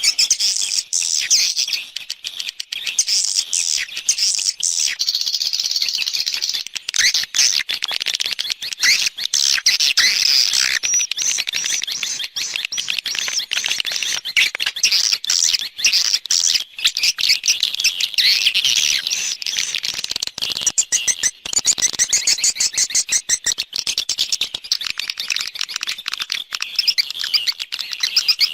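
Swiftlets twittering in a dense, continuous chorus of rapid high chirps: a swiftlet-house external lure call, played to draw swiftlets in to roost and nest.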